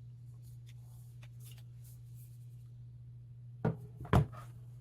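Two short knocks or clicks about half a second apart near the end, over a faint steady low hum.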